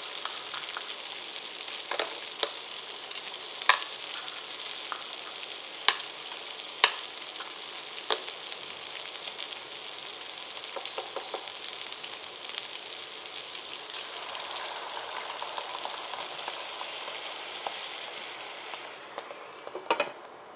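Sawara (Spanish mackerel) fillets sizzling in oil in a frying pan. Clams are dropped in, their shells clacking sharply on the pan about six times in the first eight seconds. Near the end a glass lid clinks on and the sizzle becomes muffled.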